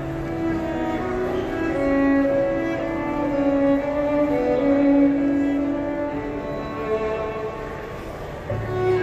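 Violin playing a slow melody of long held notes, amplified through a PA speaker. A low bass line from a backing track comes in near the end.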